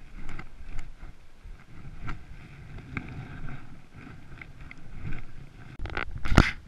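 Footsteps on a snowy trail, with low rumbling handling and wind noise on the camera. Near the end there is one loud, brief scrape.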